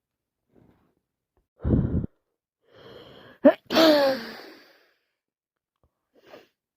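A woman with a heavy, snotty cold sneezing: a short loud puff of breath, then a breathy gasping build-up and one loud voiced sneeze about halfway through, its pitch falling as it trails off.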